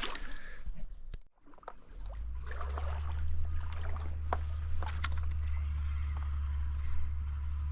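Stream water sloshing and gurgling, with a steady low rumble setting in about two seconds in and scattered small clicks over it.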